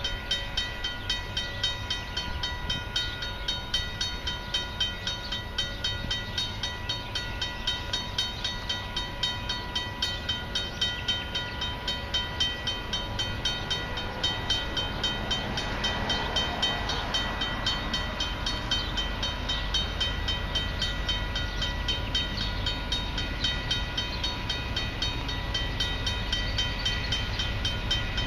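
Level-crossing warning bell ringing in quick, even strokes. The low rumble of an approaching diesel-hauled freight train grows louder near the end.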